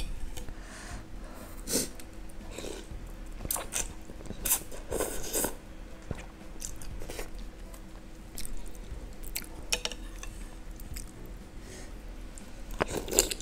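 Close-miked eating of instant noodle soup: slurps of noodles and chewing, in short scattered bursts.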